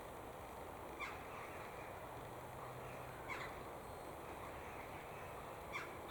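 A bird calling three times, short single calls about two seconds apart, over a steady outdoor background noise.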